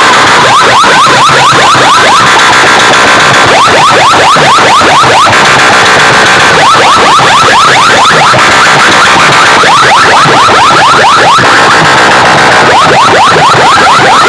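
Very loud, heavily distorted electronic sound effect blasted through DJ sound-box speaker stacks: rapid runs of falling zaps, several a second, coming in clusters with short gaps.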